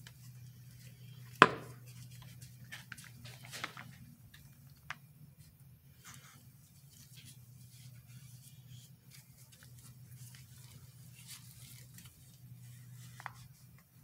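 Light handling noises, small clicks, taps and rustles, from a plastic squeeze bottle and gloved hands, over a steady low hum. There is one sharp knock about a second and a half in.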